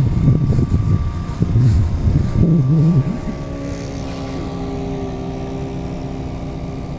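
A low, irregular rumble for about the first three seconds. Then a radio-control model airplane's engine runs steadily as it flies overhead, a steady even drone.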